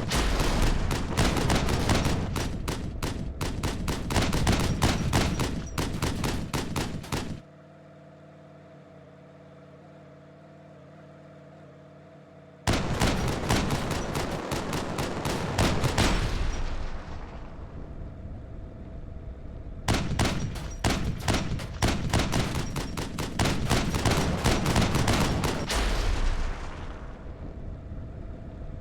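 Rapid volleys of loud bangs and crackles in three long bursts. The first runs for about seven seconds. Then comes about five seconds of only a faint steady hum. The second and third bursts each trail off.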